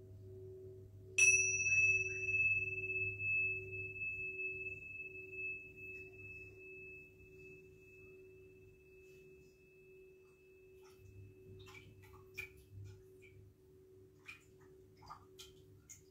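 A metal singing bowl rings on with a steady, slowly pulsing tone. About a second in, a struck metal instrument rings out with a high, clear tone that fades away over about ten seconds. Light taps and clicks of metal come near the end.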